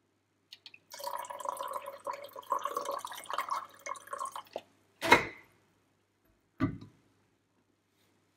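Warm water poured from a stainless steel vacuum flask into a ceramic mug for about three and a half seconds, the filling mug giving a steady ringing tone under the splash. Then a sharp, loud knock about five seconds in, and a softer knock a second and a half later.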